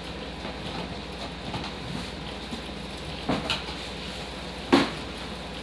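Steady low room hum with two short knocks and rustles of things being handled, a small one about three seconds in and a louder one near the end.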